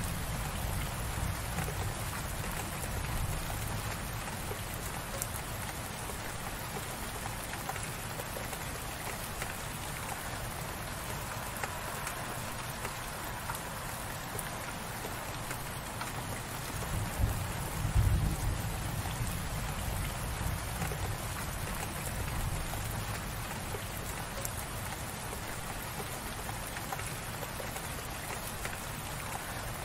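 Steady light rain, an even hiss of falling drops. A low rumble swells briefly a little past the middle.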